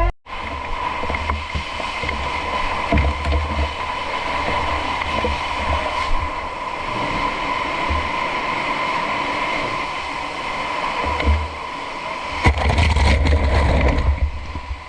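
Steady rushing of water spraying at a fire scene, with a constant high hum running under it; gusts of wind buffet the microphone now and then, hardest near the end, along with a few knocks.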